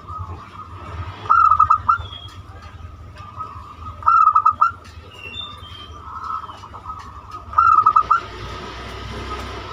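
Zebra dove (perkutut) singing: three short phrases of quick, staccato cooing notes, about three seconds apart. The song is of the 'banyumili' type used as a lure to set other zebra doves singing.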